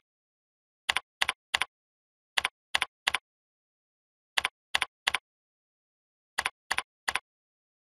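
Short sharp computer input clicks from typing values into fields and clicking between them, in four quick groups of three, about a third of a second apart, with dead silence between the groups.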